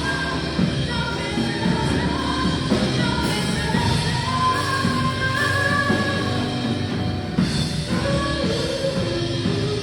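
Live worship band music: a full band playing, with a voice singing long, drawn-out notes over it.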